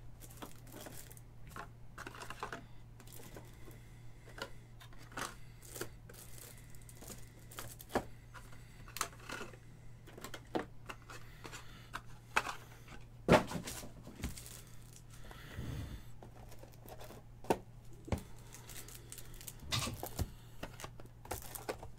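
Trading-card packs, boxes and cards being handled at a table: scattered irregular taps, clicks and rustles of cardboard and wrappers, with one sharp knock about 13 seconds in, over a low steady hum.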